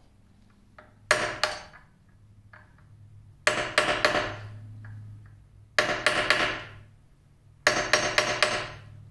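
Small metal hammer striking a steel punch to drive the pin out of a control lever on a 1950 LeBlond lathe headstock. The blows come in four bursts of two to four quick strikes, each with a short metallic ring.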